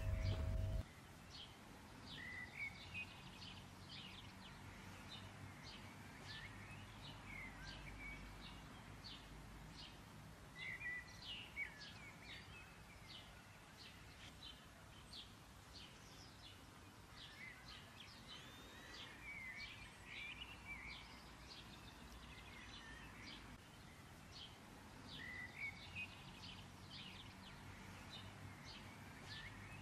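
Faint birdsong: small birds chirping in short, irregular chirps and little trills, with clusters around 11 s, 20 s and 26 s, over a faint low hum.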